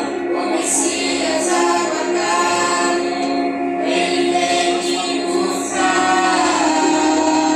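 Christian worship song sung by a vocal group in harmony, with long held notes.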